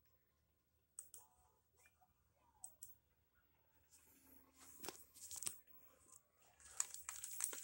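Near silence, with a few faint scattered clicks and rustles that grow denser near the end.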